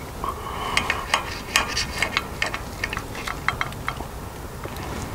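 Knife and fork clicking and scraping against a plate while cutting meat: a quick run of small sharp clicks that thins out near the end.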